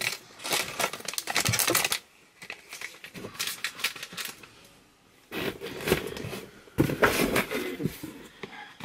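Packaging being handled and rummaged through: rustling and crinkling with small clicks and knocks, in three spells with short pauses between them.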